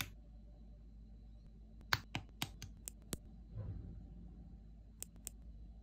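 Small plastic parts of a Blokees Transformers figure clicking and snapping together as they are fitted: a click at the start, a quick run of about six sharp clicks two to three seconds in, a soft bump, then two more clicks near the end.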